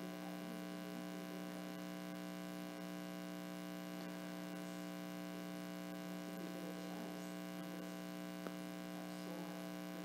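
Steady electrical hum made of several fixed tones, with one faint click about eight and a half seconds in.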